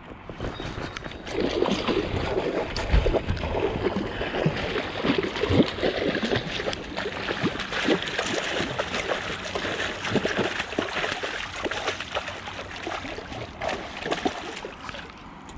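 Water splashing and gurgling, a dense, irregular run of splashes that starts about a second in and eases near the end.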